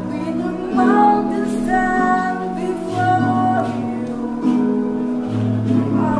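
A male voice singing a melody over instrumental accompaniment, with held chords that change about every second or two.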